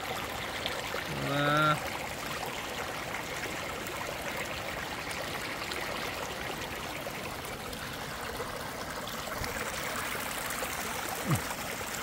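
Shallow, muddy river rushing and splashing over stones and boulders, a steady running-water sound. A short voice is heard briefly about a second in.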